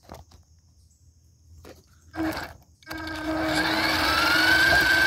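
Small RC car electric motor: a short blip about two seconds in, then from about three seconds a steady, loud whine whose pitch rises slightly as the motor speeds up and drives the Bezgar 1:18 scale car.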